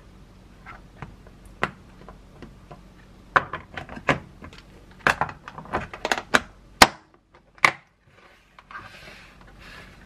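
Lock&Lock plastic lunch box being closed: a run of sharp plastic clicks and taps as the lid is fitted and its locking flaps are snapped down, the two loudest snaps a little past the middle. Near the end comes a brief soft scraping.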